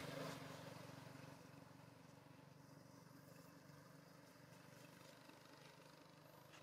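A passing vehicle fading away over the first second or two, then a faint steady low hum close to silence.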